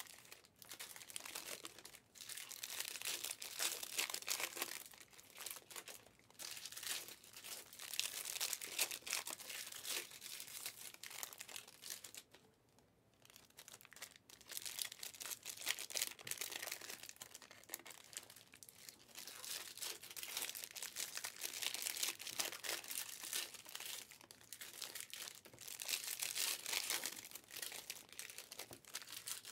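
Trading-card pack wrappers being torn open and crinkled by hand, in irregular bouts of crackling, with a short pause about halfway through.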